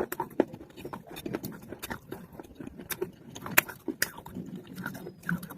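Chewing and crunching on pieces of wetted baked clay pot (matka), with irregular crisp crunches several times a second.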